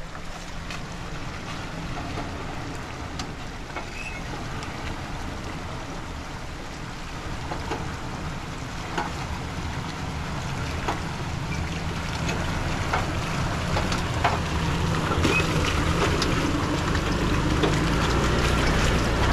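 A vehicle driving over rough ground: a steady low engine drone with scattered knocks and rattles, getting louder over the second half.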